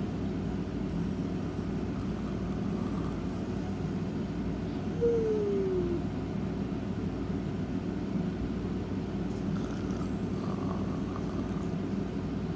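Snoring: one whistling snore that falls in pitch and lasts about a second, about five seconds in, over a steady low hum.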